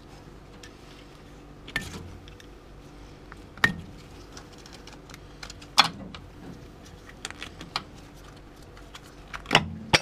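Thin steel tool clicking and scraping against the low-reverse servo snap ring in a Ford AOD transmission case while prying the ring out: scattered sharp metallic clicks, three louder ones about two seconds apart and a few quick ones near the end as the ring comes free.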